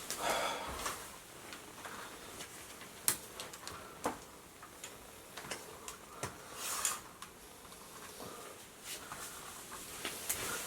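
Scattered light clicks and knocks of small objects being handled, with a short rustling hiss about seven seconds in.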